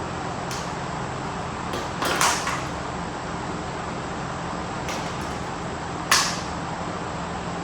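Steady background noise with a low hum, broken by two sharp knocks, about two seconds and six seconds in, with a few fainter clicks between.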